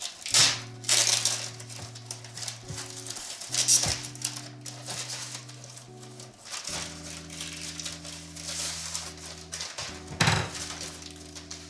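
Plastic poly mailer being torn open and handled, crinkling and rustling in several bursts as the contents are pulled out. Quiet background music with steady low notes runs underneath.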